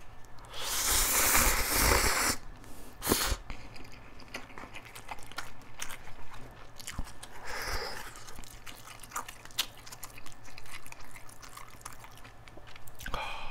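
Close-miked eating of instant cup noodles: a loud slurp of noodles about half a second in, then chewing with many small wet mouth clicks, and a second shorter slurp about halfway through.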